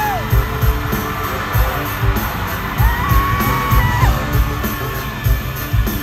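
Live K-pop dance track played loud over an arena sound system, with a heavy bass-drum beat. Fans scream and whoop above it, with long arching cries near the start and again about three seconds in.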